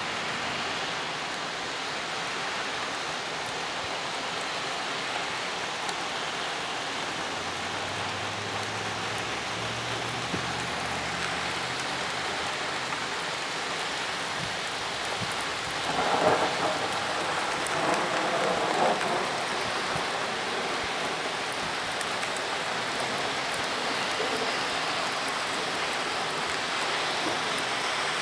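Steady rain falling during a thunderstorm. Thunder rumbles low about a third of the way in, then louder and rougher a little past halfway.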